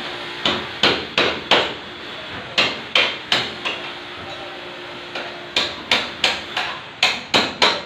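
Hand tools striking an old steel window frame set in a concrete wall, about sixteen sharp blows in quick runs of three to five, roughly three a second, as the frame is knocked loose from the wall.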